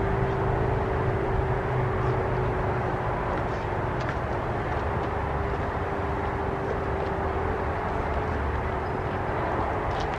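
ACA P-50 rotating warning siren sounding one steady tone, swelling and fading as the rotating head sweeps past, its pitch drifting slightly lower.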